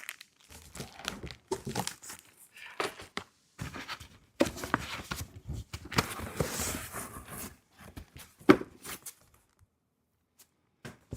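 Packing material rustling and crinkling, with scattered knocks of wooden beehive parts being pulled out of a shipping box and set down; the sharpest knock comes about eight and a half seconds in.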